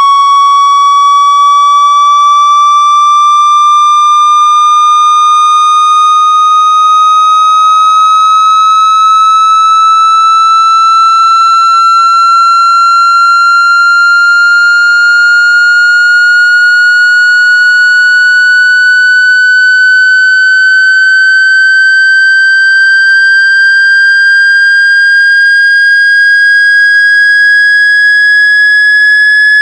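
Loud, steady electronic tone with overtones, gliding slowly and evenly upward in pitch throughout: a synthesized tone made to shake water out of a phone's speaker grille.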